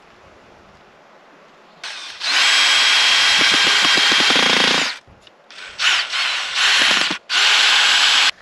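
Cordless drill driving screws into a wooden post: one long run of about three seconds, then three shorter bursts in quick succession.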